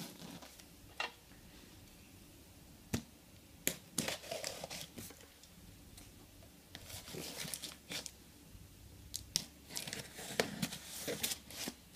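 Cardboard box and packaging being handled and opened: scattered knocks and taps, with short stretches of crinkling and tearing.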